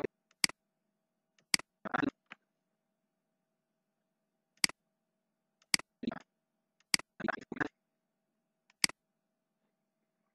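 Computer mouse clicking: about six sharp single clicks at uneven intervals, with a few short, duller sounds among them.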